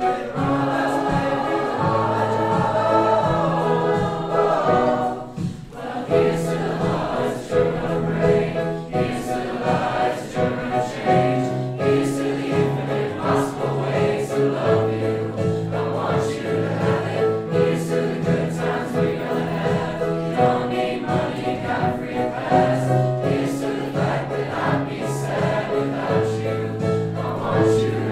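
High-school choir singing a song in several parts, with held chords that change every second or two.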